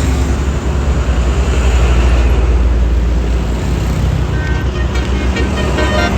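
Tour bus passing close, its engine and road noise loud with a deep rumble. About four seconds in, a basuri telolet horn begins playing its multi-note melody faintly.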